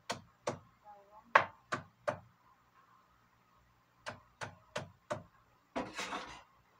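A run of sharp knocks, about three a second, then a second run of four after a short pause. A brief noisy burst follows near the end.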